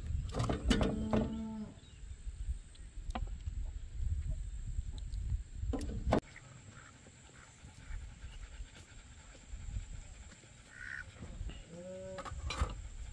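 A cow mooing twice, one call about a second in and another near the end, over a low rumble that stops about six seconds in.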